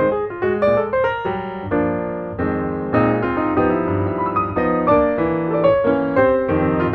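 Background piano music: a quick run of notes, a few held chords, then quick notes again.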